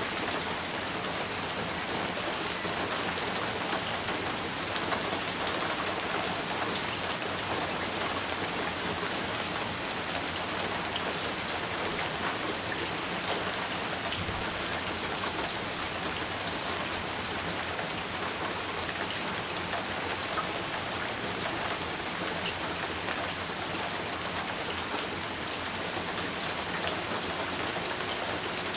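Steady rain falling, an even hiss with scattered individual drops ticking close by.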